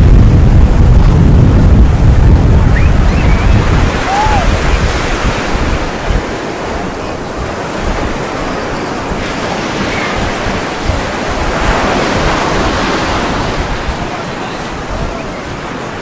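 Ocean surf breaking and washing up the beach, with wind buffeting the microphone, heaviest in the first four seconds. The surf swells to a louder wash about twelve seconds in.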